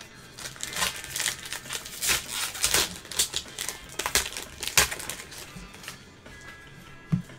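Trading cards and pack wrappers handled by gloved hands: an uneven run of quick crinkles and card clicks. Steady background music plays underneath.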